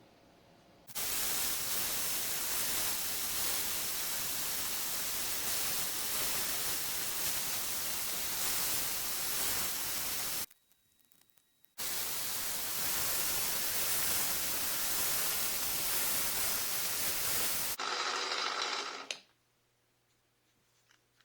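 A loud, steady hiss in two long stretches, about nine and six seconds, each switched on and off abruptly. A shorter, rougher burst follows near the end.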